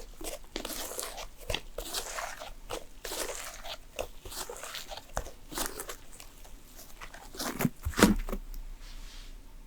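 Thick slime being squished and pressed by hand, giving many small crackling pops and clicks, with a louder burst of squishes near the end.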